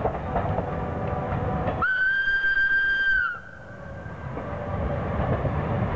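Small steam tank locomotive rolling past with its coaches, sounding one steady whistle blast about two seconds in that lasts about a second and a half and sags slightly in pitch as it cuts off.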